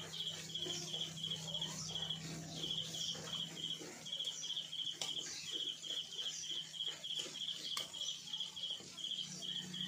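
A small animal chirping: one high chirp repeated in quick, evenly spaced short bursts, over a faint hiss and a steady low hum.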